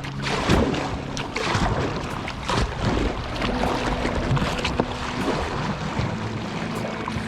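Water splashing and lapping around a kayak, with short splashy clicks throughout. Soft background music with held notes plays underneath.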